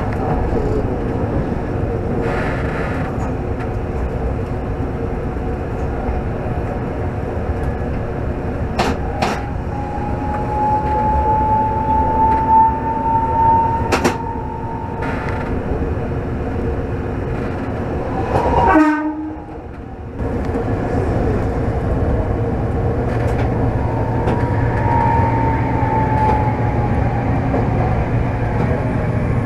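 Toden Arakawa Line streetcar running along its track, heard from the driver's cab: a steady rumble with occasional sharp clicks from the wheels. An electric motor whine rises slowly in pitch about ten seconds in. Near the end another whine falls away as the tram slows.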